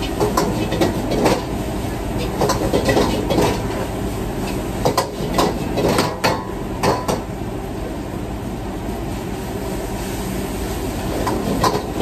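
Metal ladle clanking and scraping against a wok in irregular bursts, busiest in the first seven seconds and again near the end. Under it runs the steady roar of the commercial kitchen's range and exhaust hood.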